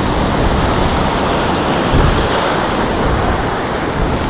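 Ocean surf breaking and washing in over the rocks at the waterline, with a steady rush and a brief surge about halfway through.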